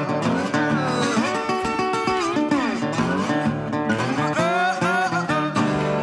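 Acoustic blues guitar playing an instrumental break, several notes gliding up and down in pitch.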